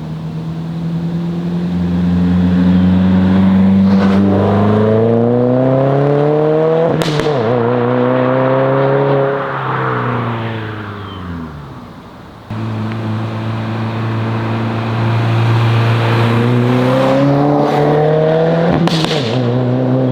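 2022 Subaru WRX's turbocharged 2.4-litre flat-four, heard through a Remark 4-inch muffler-delete axle-back exhaust, idling and being revved twice. Each time the pitch rises over a few seconds and then falls back to idle.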